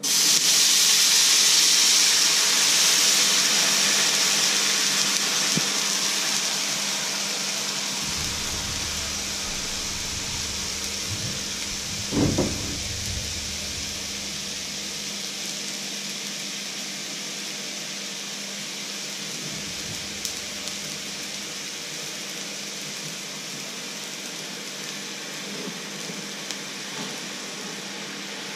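Liquid poured into a hot pan, hissing loudly the instant it lands, then boiling with a steady hiss that slowly fades. A brief knock about twelve seconds in.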